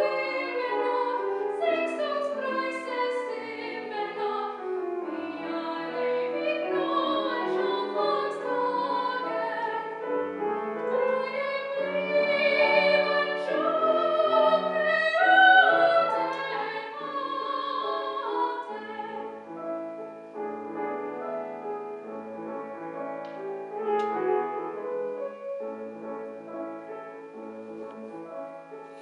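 Soprano singing a German art song with wide vibrato over Steinway grand piano accompaniment. About two-thirds of the way through, the voice stops and the piano plays on alone.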